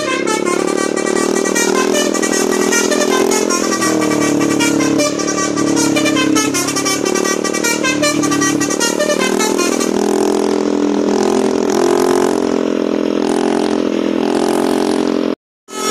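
Multi-tone telolet Basuri bus horn playing a tune, its several pitches changing note by note. The sound cuts out abruptly for a moment near the end.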